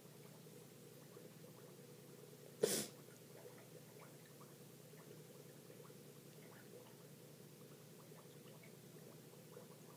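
Faint steady hum, broken once about two and a half seconds in by a single short, sharp burst of hissing noise.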